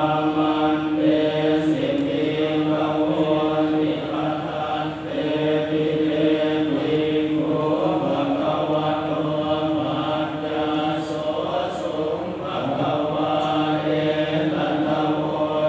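Buddhist chanting, recited steadily on a nearly level pitch with small rises and falls.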